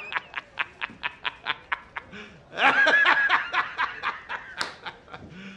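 A man's rapid staccato laughter, about six short bursts a second, with a louder burst of laughing about two and a half seconds in.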